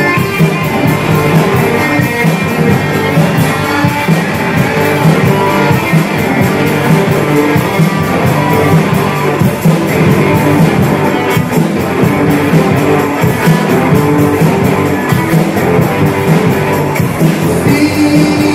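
Live band playing loud rock and roll, with guitars to the fore.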